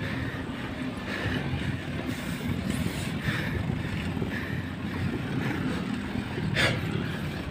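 Riding noise picked up by a camera on a moving mountain bike: a steady low rumble of wind on the microphone and tyres on the pavement, with one brief sharp rattle about two-thirds of the way through.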